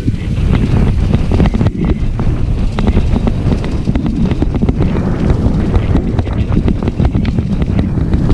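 Wind buffeting the microphone of a moving enduro motorcycle, with the engine running underneath and frequent small knocks and rattles.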